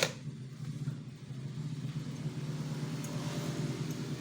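A single sharp click at the very start, as a part is fitted on the copier, over a steady low hum and the wash of road traffic going by.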